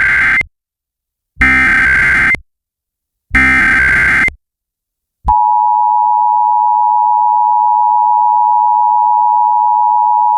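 Emergency Alert System SAME header: the end of one data burst and then two more bursts of warbling data tones, each about a second long, carrying the coded alert. About five seconds in, the two-tone EAS attention signal starts suddenly and holds steady, announcing the nationwide test message that follows.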